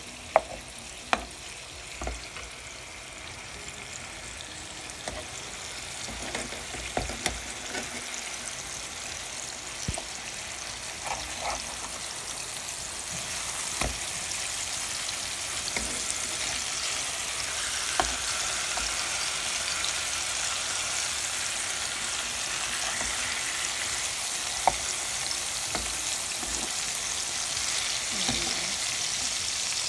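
Pangas fish steaks shallow-frying in oil in a pan: a steady sizzle that grows louder after about ten seconds, with scattered short clicks and taps.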